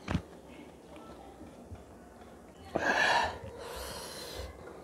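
Close-up breath and mouth noises of a person eating. A click comes near the start, then a loud, short noisy intake of breath about three seconds in, followed by a softer, hissy breath.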